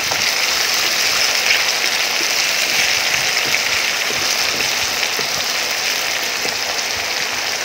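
Chopped onions, ginger and garlic sizzling steadily in hot mustard oil in a kadai as they are stirred with a wooden spatula.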